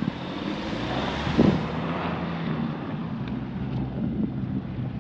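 Sedan's engine running under load as it drives slowly out through deep fresh snow, with its tyres pushing through the snow. There is a short thump about one and a half seconds in.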